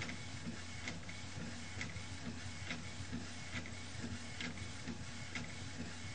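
MagicPro Xtreme printer running a print onto a mini baseball bat: a low steady mechanical hum with a sharp click about once a second.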